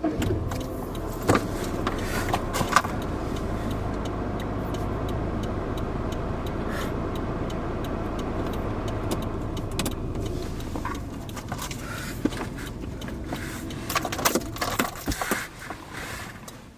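Steady low rumble of a motor vehicle with scattered clicks and light rattles; the rumble fades about two thirds of the way through, and a run of louder knocks and rattles follows near the end.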